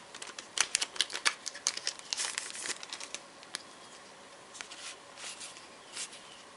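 Crinkling of a foil trading-card booster pack wrapper being handled and opened. The crackles are dense for about the first three seconds, then thin out to occasional soft rustles.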